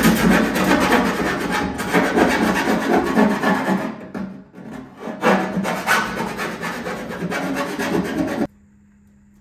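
Hand file rasping back and forth on the edge of a hole cut in the top of a sheet-metal fuel tank. There is a short pause about halfway, and the filing stops abruptly about a second before the end.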